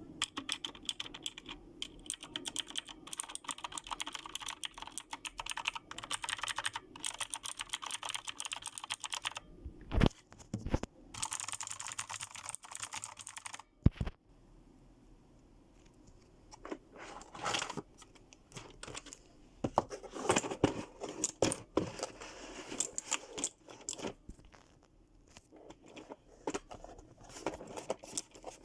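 Redragon Kumara K552 mechanical keyboard with clicky Outemu Blue switches being typed on, fast and continuously at first, then in sparser bursts with pauses. A couple of louder knocks stand out about ten and fourteen seconds in.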